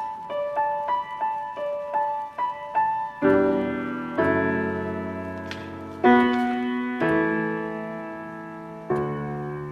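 Piano introduction to a choral anthem: gentle single notes in a rocking pattern, about three a second, then from about three seconds in full, ringing chords struck about once a second, each left to fade.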